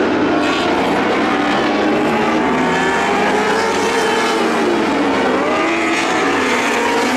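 Several lightning sprint car engines racing around a dirt oval at full throttle, their pitches rising and falling and crossing one another as the cars accelerate and pass.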